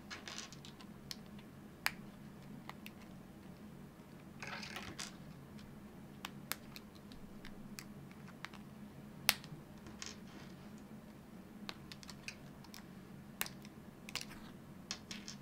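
Small hard plastic clicks and snaps as 3D-printed parts are broken off a kit card and handled, with brief rustling of the plastic frame. The clicks come irregularly, one louder snap about nine seconds in.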